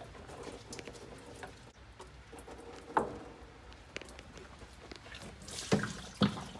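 Spin-on diesel fuel filter being taken off by hand: small clicks, scraping and dripping of fuel, a sharp knock about three seconds in and two louder knocks near the end.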